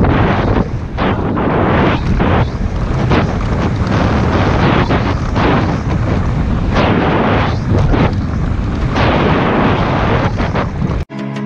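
Heavy wind buffeting on a helmet-mounted camera's microphone during a fast downhill mountain-bike run, with knocks and rattles from the bike over a rough dirt trail. It cuts off suddenly near the end.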